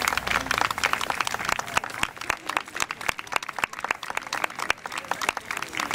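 Ringside crowd applauding, many hands clapping in a dense patter that is heaviest for the first couple of seconds and then thins a little.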